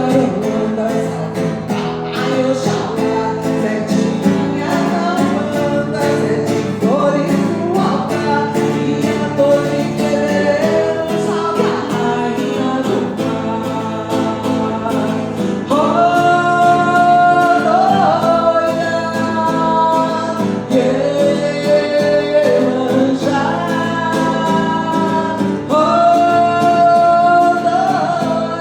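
A woman singing a devotional chant (a reza) over a plucked guitar accompaniment, holding long notes with vibrato, the phrases swelling louder about halfway through and again near the end.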